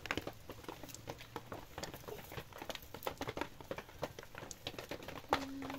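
A thin stick poking and raking through a pile of charcoal embers: irregular small clicks and scrapes of the coals shifting against each other and the ground.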